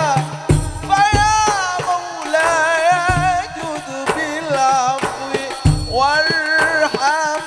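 A man sings a sholawat, an Arabic devotional song, into a microphone with a long, wavering, ornamented melody. A few deep hand-drum beats fall underneath.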